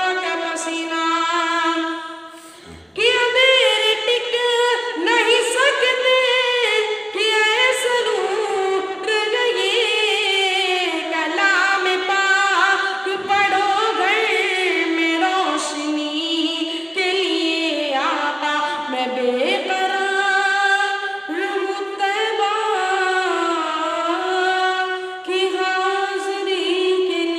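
A boy singing a naat, an Urdu devotional song, unaccompanied into a handheld microphone. There is a short break for breath about three seconds in, and a long held note near the end.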